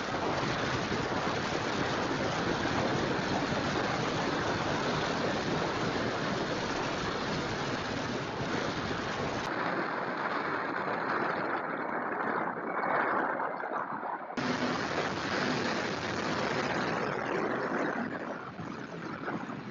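Surf breaking and wind buffeting the microphone, a steady rushing noise. The background changes abruptly about ten seconds in and again about five seconds later, going duller and then back.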